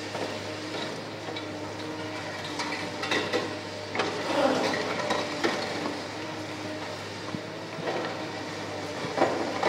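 Tracked excavator's diesel engine running steadily while its hydraulic demolition shear crushes a reinforced concrete canopy beam. Crunching, cracking concrete and falling rubble come in bursts about three seconds in, again from four to five and a half seconds, and near the end.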